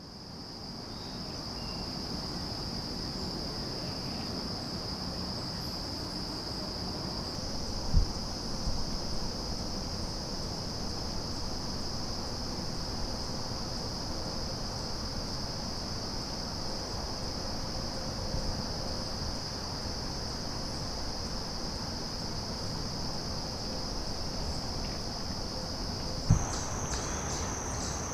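A steady, high-pitched chorus of insects trilling in the woods, which turns a little higher and pulses near the end. There is a short thump about eight seconds in and another near the end.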